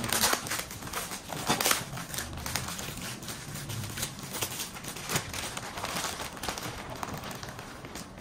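Cardboard and wrapping of a parcel being handled and unwrapped by hand: irregular crinkling and rustling with small knocks.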